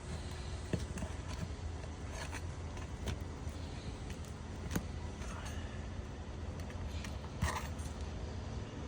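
A few scattered light clicks and scrapes of hand tools working asphalt roof shingles, over a steady low rumble.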